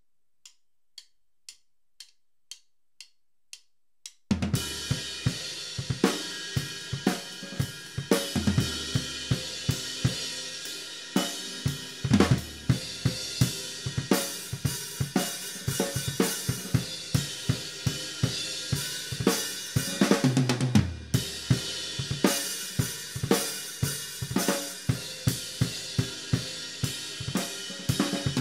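A drum kit played after a count-in of eight light clicks about two a second; about four seconds in the full kit comes in, with kick drum, snare, hi-hat and cymbals in a steady busy groove.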